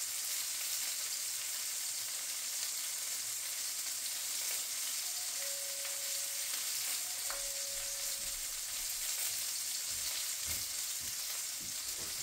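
Sausage links sizzling in a frying pan, a steady crackling hiss of fat frying.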